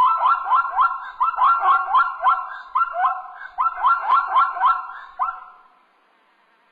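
Zebra barking: a quick run of short, yelping calls, about three or four a second, that dies away about five seconds in.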